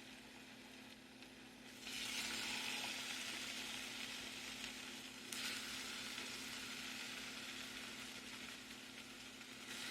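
Frozen chicken pieces sizzling in butter in a hot skillet. The sizzle jumps up suddenly about two seconds in as the chicken goes into the pan, and rises again a few seconds later, then holds steady.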